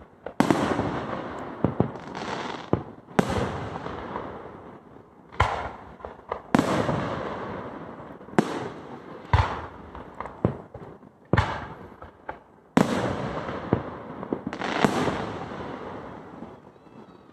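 Aerial fireworks shells bursting in a steady series: about a dozen sharp booms, one every second or two, each rolling away in a long echo.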